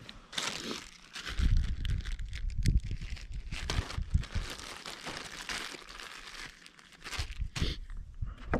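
Clear plastic zip-top bag crinkling as it is handled, with low thumps mixed in.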